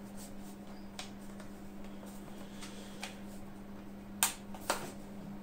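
Light clicks and taps from handling a MacBook's bottom cover and its screws as they are worked into place, with two sharper clicks a little after four seconds in. A steady low hum runs underneath.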